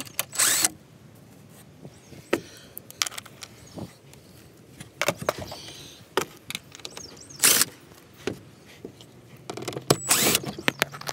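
Scattered clicks, scrapes and short metallic rattles of a tool fitted with a T30 Torx bit taking out the bolts of the plastic engine under-cover, with the loose bolts being handled. The louder rattles come in separate spells: near the start, at about a quarter, at about two thirds and near the end.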